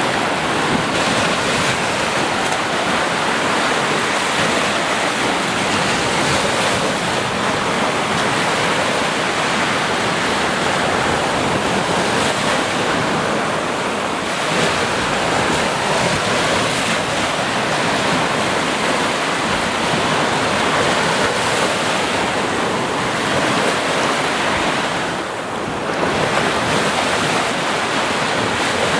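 Sea waves washing onto a beach in a steady, continuous surf, with some wind on the microphone.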